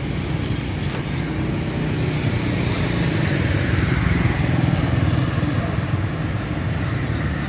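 Road traffic running steadily: engine and tyre noise from passing vehicles, swelling about four seconds in as one goes by close.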